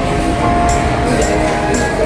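Background music with steady sustained notes and a light high percussion tick about twice a second.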